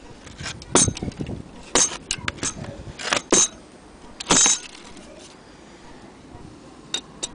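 Metal clock parts clinking and knocking as they are handled: a run of sharp clicks and clatters over the first four and a half seconds, a quieter spell, then two more near the end.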